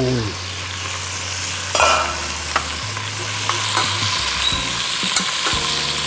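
Lamb shanks sizzling as they are seared in hot mustard oil in a metal pot, turned with metal tongs that clink against the pot a few times, the sharpest clink about two seconds in.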